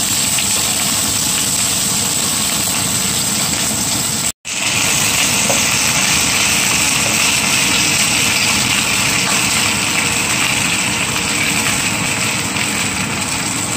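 Sliced spring onion, celery, leek and garlic sizzling steadily in hot cooking oil in a frying pan as they are stirred. The sound cuts out for a split second about four seconds in.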